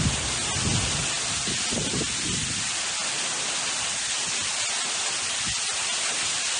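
Heavy monsoon rain pouring down in a steady hiss, with strong wind. Gusts buffet the microphone in low rumbles during the first couple of seconds and once more near the end.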